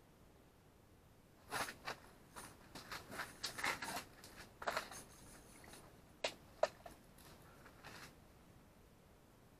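Close handling noise: a run of short rustles and scrapes of clothing and shelter fabric, with two sharper knocks about six seconds in.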